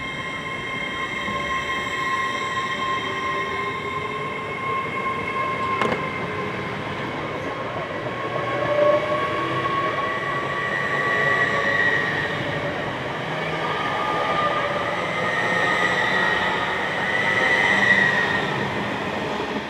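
LNER Azuma train running along the station platform: the rumble of its wheels and carriages, with a steady high whine running through it.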